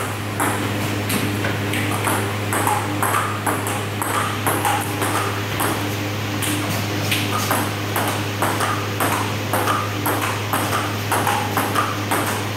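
Table tennis rally: the ball clicks off the paddles and the table in a steady rhythm, about two hits a second, over a steady low hum.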